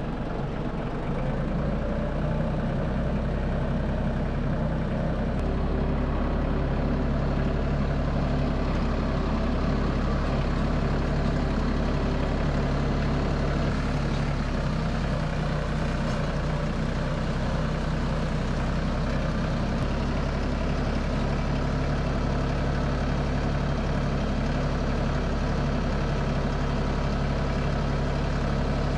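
Compact utility tractor engine running steadily as the tractor drives along a trail, heard close up from the driver's seat.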